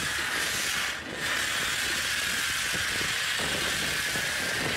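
Pressure-washer foam lance spraying snow foam onto a heavy, mud-caked excavator arm: a steady hiss with a short break about a second in.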